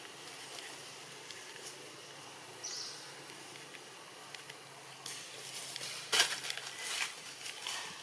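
Outdoor ambience: a steady faint hiss with one short high chirp, then a run of crackly rustles and clicks in the second half, loudest about six seconds in.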